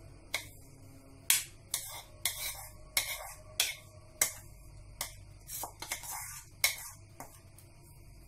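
A plastic serving spoon tapping and scraping against a bowl as fried onions are scooped out onto rice: about a dozen sharp, uneven clicks with short scrapes between them.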